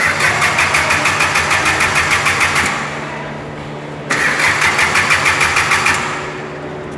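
Starter motor cranking a carbureted Toyota four-cylinder petrol engine in two bursts, the first about two and a half seconds and the second about two seconds, with a rhythmic pulse of compression strokes. The engine does not fire, because the distributor is open while its contact points are being set.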